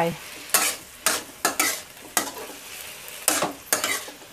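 Metal spatula scraping and turning bitter beans and meat in red curry paste around a hot wok, in uneven strokes about every half second, over a faint sizzle as the mixture is stir-fried dry on high heat.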